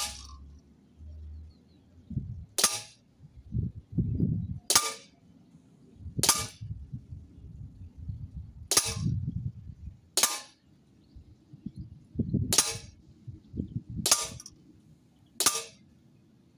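Huntsman FAL CO2 BB airgun firing 4.5 mm BBs: about eight sharp cracks, one shot every second or two, unevenly spaced.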